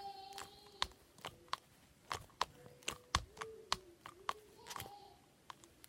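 Slime being poked and squished by hand, making irregular sharp clicking pops from trapped air, with a faint wavering tone underneath.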